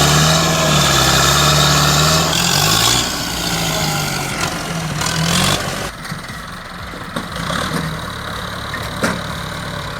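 Tractor engine running under load, its pitch dipping and rising, then dropping away about six seconds in. A few sharp knocks follow later.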